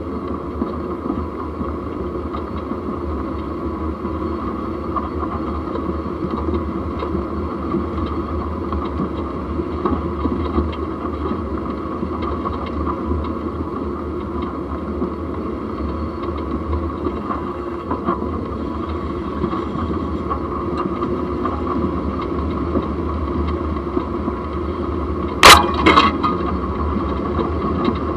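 A Jeep driving, heard from a camera at the front axle: steady running noise of engine, drivetrain and tyres. A sharp, loud bang comes about 25 seconds in, followed by a smaller one.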